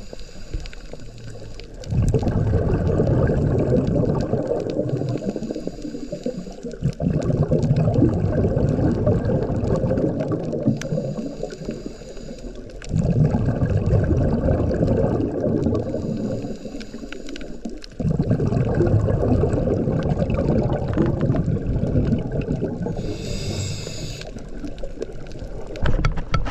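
A scuba diver breathing through a regulator underwater: a short hiss on each inhale, then a long, low bubbling rush of exhaled air lasting several seconds, repeating every five or six seconds.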